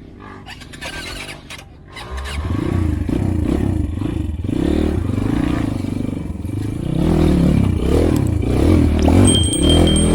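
Motorcycle engine revving up and down repeatedly, getting louder about two seconds in, with clattering knocks before it picks up. A brief high steady whine sounds near the end.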